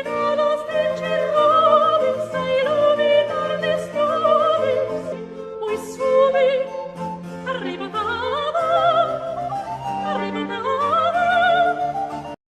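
Operatic singing with strong vibrato over orchestral accompaniment, cutting off abruptly at the very end.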